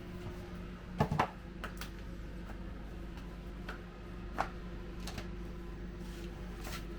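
A few scattered clicks and knocks over a steady low hum; the loudest knocks come as a quick pair about a second in.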